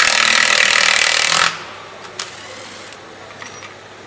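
A handheld power tool runs in one loud burst of about a second and a half at the engine-to-gearbox joint, followed by a single sharp click.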